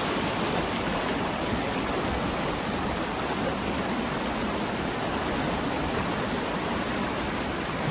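Muddy floodwater rushing and churning in a fast current over a flooded street: a steady, even rushing noise.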